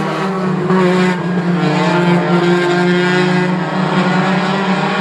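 A field of four-cylinder short-track race cars running together, several engines heard at once with their pitches rising and falling as the cars accelerate and ease off.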